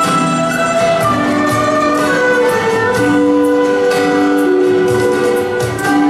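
Chinese traditional instrument ensemble playing a slow melody, with long held notes that slide between pitches, typical of erhu, over plucked guzheng, pipa and guitar.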